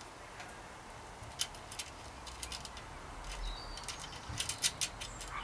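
Light, irregular clicks and ticks of a metal mudguard stay and its clip being handled and pushed together by hand, in small clusters.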